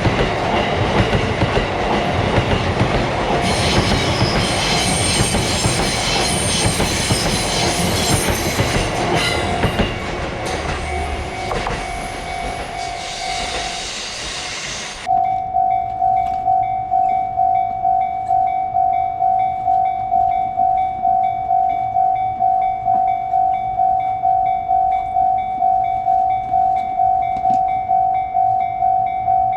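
A train running through a Japanese level crossing, its wheels clattering, with the crossing's warning bell ringing underneath. About halfway through, the sound cuts to a level-crossing warning bell on its own, ringing steadily at about two strikes a second.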